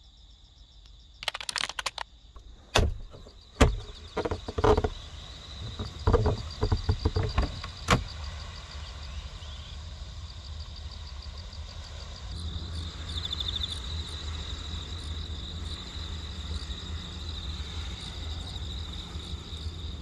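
Insects chirping in a steady high trill, with a run of sharp knocks and clatters over the first eight seconds, then a low steady rumble from about twelve seconds in.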